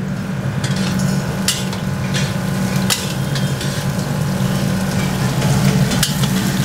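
Sliced onions sizzling as they are tipped into hot oil in a large steel kadai and stirred. The steel ladle scrapes and knocks against the pan about every second, over a steady low hum.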